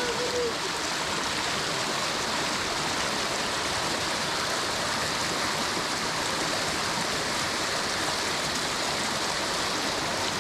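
Steady rush of a fast mountain stream, an even noise that holds at one level throughout.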